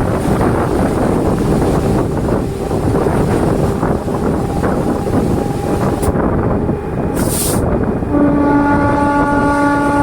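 DEMU express train running on the track, a steady loud rumble of wheels on rails heard from on board. About seven seconds in there is a brief hiss, and about eight seconds in the train's horn starts one long steady note.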